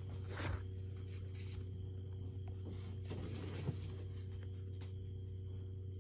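Steady low background hum, with a short rustle about half a second in and another soft rustle ending in a small click a little past the middle.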